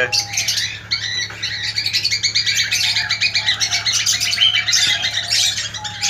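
Cockatiels chirping and chattering in a continuous stream of rapid, short, high chirps.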